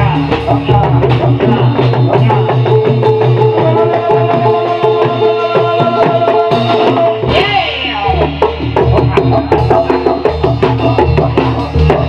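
Live Kuda Lumping ensemble music: hand drums beating a fast, dense rhythm over steady ringing pitched tones, with a short sliding melodic sound about seven and a half seconds in.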